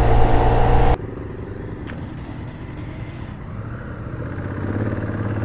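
Motorcycle engine running with wind noise while riding. About a second in, the sound cuts abruptly to a quieter, duller engine rumble from another bike, which grows louder near the end.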